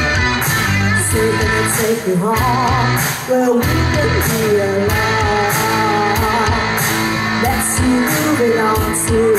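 A woman singing a pop song live into a handheld microphone over backing music, her melody rising and falling in long held notes.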